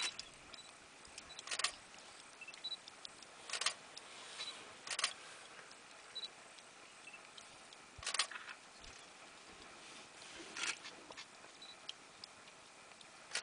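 Five or six short, sharp clicks at irregular intervals of one to three seconds over a faint background, with a few faint high chirps between them.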